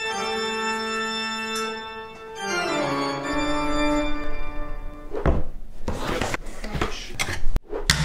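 Spooky organ music: a held organ chord that then slides down in pitch, followed about five seconds in by a dense noisy stretch with sharp hits.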